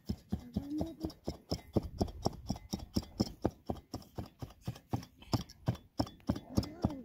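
Hand-held metal weft beater striking the weft down into the warp of a horizontal ground loom, in quick repeated knocks of about four a second. A short wavering voice-like sound comes briefly near the start and again near the end.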